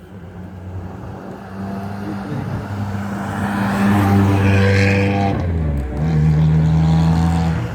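A hill-climb competition car's engine running at steady low revs as the car drives slowly past on the descent. It grows louder towards the middle and its pitch drops about six seconds in as it goes by.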